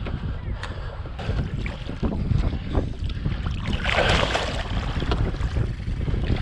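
Wind buffeting the microphone throughout, with a short burst of splashing about four seconds in as a tiger muskie thrashes in the landing net at the side of the boat.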